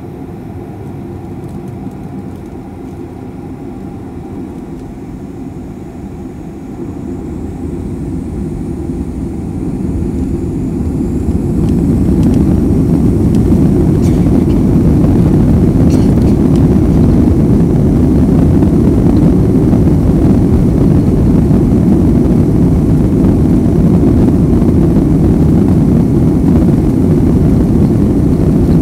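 Boeing jet airliner's engines spooling up to takeoff thrust: a steady hum grows over about five seconds, with a faint rising whine, then holds as a loud, even roar.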